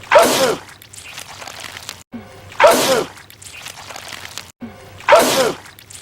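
A man sneezing loudly three times, about two and a half seconds apart. Each sneeze is the same looped clip: a sharp breathy burst whose pitch falls, followed by a quieter stretch.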